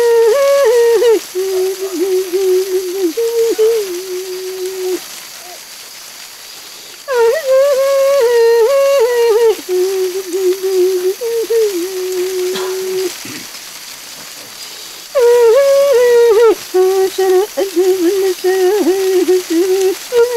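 A shaman's healing chant: a high voice sings three long, repeated melodic phrases, each starting on a higher note and settling onto a lower held one, with a faint steady hiss beneath.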